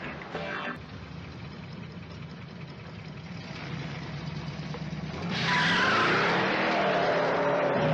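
A muscle car's engine idles, its note rising slowly. About five seconds in it is revved hard and the tyres squeal loudly as the car takes off.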